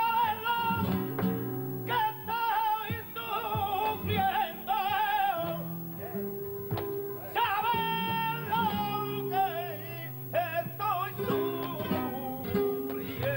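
Flamenco soleá: a male cantaor sings long, wavering, ornamented lines in several phrases broken by short pauses, over flamenco guitar, with sharp percussive strikes between and under the phrases.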